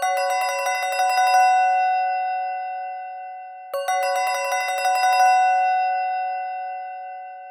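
Palm Pre ringtone: a bell-like chime struck in a fast run for about a second and a half, then left ringing and fading away. The pattern starts over a little under four seconds in, as the ringtone loops.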